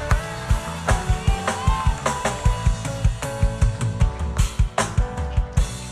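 Live church band drum kit playing a fast run of bass-drum and snare hits over sustained chords, the musical punctuation behind a preacher's pause.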